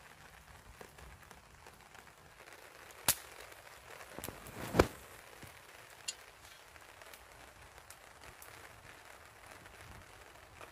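Campfire crackling softly, with three sharp pops, the loudest about five seconds in.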